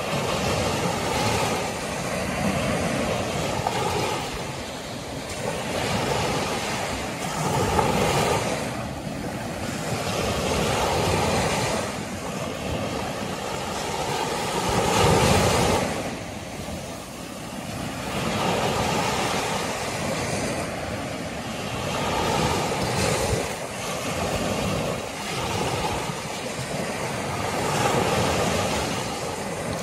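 Small Gulf of Mexico surf breaking and washing up on a sandy beach: a steady wash of noise that swells with each wave every few seconds, loudest about halfway through.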